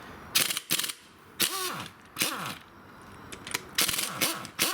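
Several short bursts from a pneumatic impact wrench undoing the crankshaft main bearing cap bolts, each burst trailing off in a falling whine as the tool spins down.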